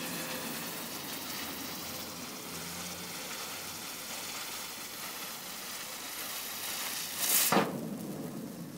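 Small Category 1 ground firework spraying sparks with a steady hiss, and one sharp, loud crack about seven and a half seconds in. The hiss then starts to die away.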